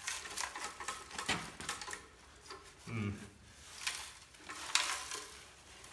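Loose debris rattling and sliding inside a removed Porsche 996 sports exhaust silencer as it is tipped up and down. It is a sign that the silencer's internals have broken up and that it is worn out.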